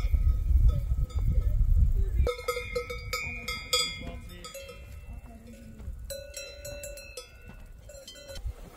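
Cowbells on grazing cows clanking irregularly, several bells at different pitches ringing on after each knock. A loud low rumble covers the first two seconds.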